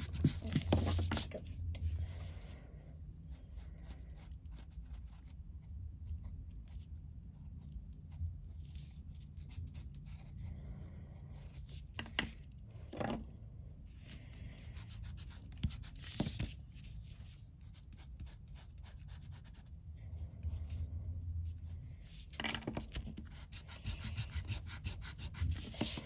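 Hand and pencil rubbing and scratching faintly on drawing paper while shading a sketch, with a few light taps. A steady low hum runs underneath.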